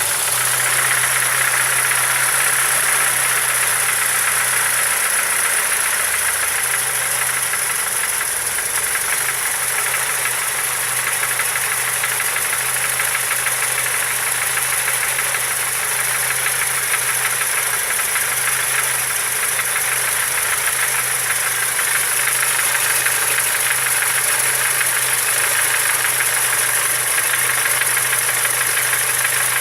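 Car engine idling with a steady, fast knock that repeats evenly through the running sound.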